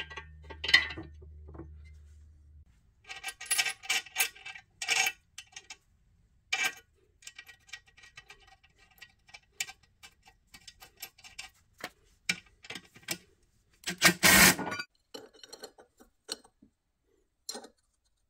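Steel bolts, nuts, studs and bearing-housing parts of a Corvette rear trailing arm clinking and rattling as they are handled and fitted by hand, in short metallic clicks with a faint ring. About 14 s in comes a longer, louder clatter of metal on metal.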